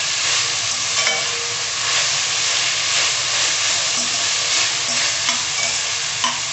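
Chopped vegetables (onion, carrot, cabbage, green chilli) sizzling in hot oil as they are stir-fried, with a few short clicks and scrapes of the stirring utensil against the pan.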